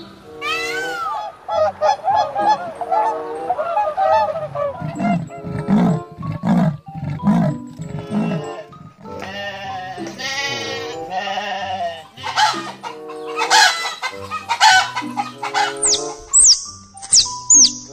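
A series of different animal calls over background music: honking calls first, then a run of low repeated grunts, then sharp high falling chirps near the end.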